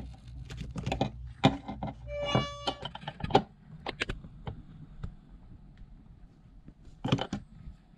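Metal spanner clicking and scraping on a terminal nut of a battery-monitor shunt as the nut is tightened, with a short squeak about two and a half seconds in.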